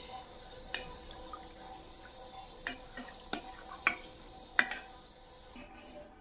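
Wooden spatula stirring chicken pieces and red lentils in water in a stainless steel pot: soft watery sloshing, with a handful of short sharp taps of the spatula against the steel.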